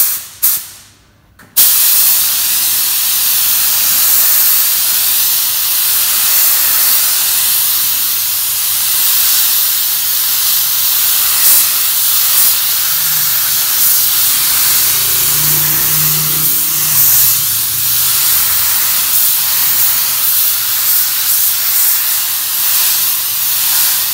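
Compressed-air paint spray gun spraying a coat of adhesion promoter onto a plastic car bumper: a couple of short bursts from the trigger, then from about a second and a half in a long, steady, loud hiss of spraying.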